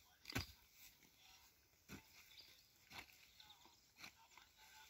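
A long-handled hand hoe chopping into soil: four dull strikes about a second apart, the first the loudest.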